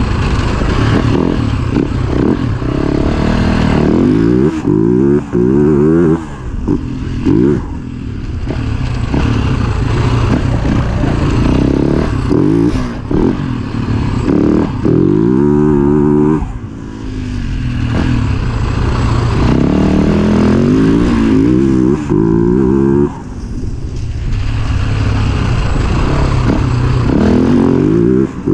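Husaberg FE 450 single-cylinder four-stroke dirt bike engine under way, its revs climbing in a series of pulls and dropping briefly between them as the throttle is shut and gears change.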